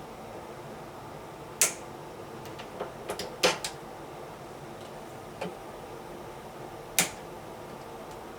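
About five sharp clicks and knocks, two of them close together in the middle, over a steady faint hum.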